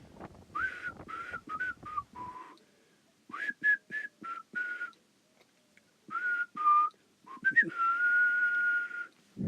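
A person whistling short notes in several phrases, with small rises and falls in pitch and pauses between them, ending on one long held note.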